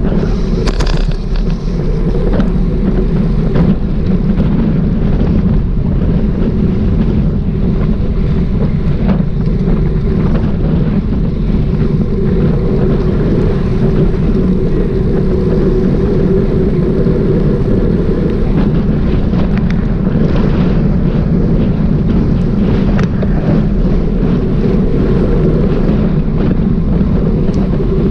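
Steady, loud wind rumble on the microphone of a bike-mounted camera while cycling along a street, with road noise and a few faint knocks.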